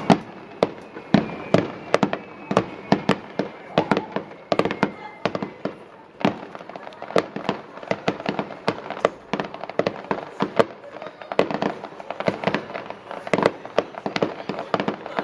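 Fireworks display: a rapid, irregular string of sharp bangs from bursting aerial shells, several a second and varying in loudness.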